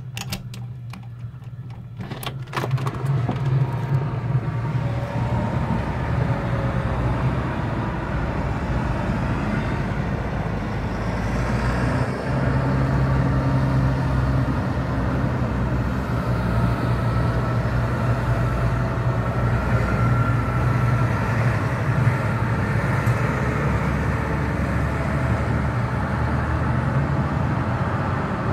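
A procession of tractors' diesel engines running as they pass along the road, a steady low drone that comes in loud about three seconds in, after a few clicks.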